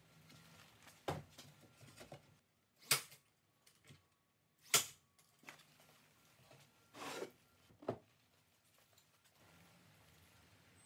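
Five or so wooden knocks and clunks of plywood panels being handled and set against one another. The two loudest come about three and five seconds in.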